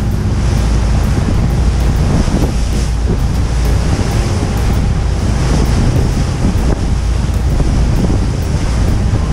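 Heavy wind buffeting the microphone aboard a moving tour boat, over a steady engine drone and rushing water.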